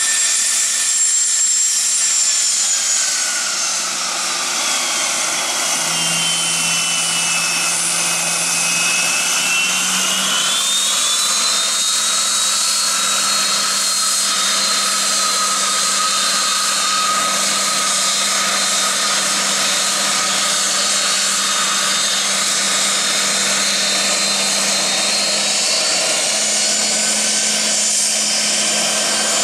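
Twin tail-mounted Rolls-Royce AE 3007 turbofans of an Embraer EMB-135BJ Legacy business jet whining steadily as it taxis away. The whine drops in pitch a few seconds in, rises again around ten seconds in, and then holds.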